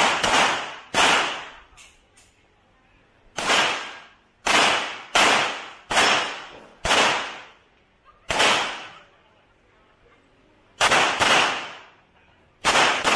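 Handgun shots fired during an IPSC stage, about a dozen in all. They come singly and in quick pairs with uneven gaps of up to two seconds, and each shot trails off in a short echo.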